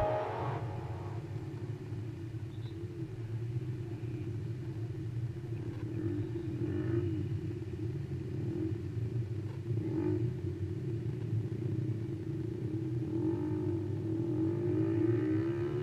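Motorcycle engine idling steadily with a low, even hum; near the end another vehicle approaches and the sound swells a little.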